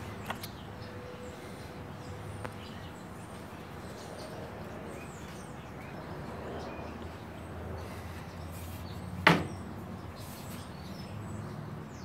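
Quiet background with faint bird chirps, broken by a single sharp tap about nine seconds in.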